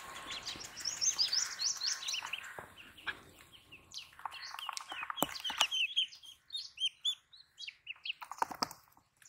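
A group of ducklings peeping continuously, many short high chirps overlapping, thinning out in the second half. A few sharp knocks come about halfway through and again near the end.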